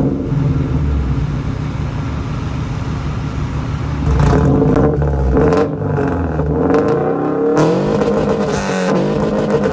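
Car engine running and being revved, louder from about four seconds in, its pitch rising and falling in repeated revs near the end.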